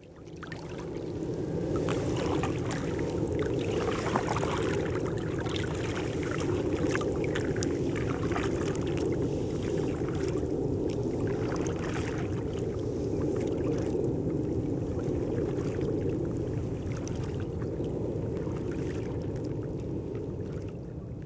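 Water splashing and trickling as a kayak is paddled, with irregular dips and drips of the paddle over a steady wash of water. Fades in at the start and drops away near the end.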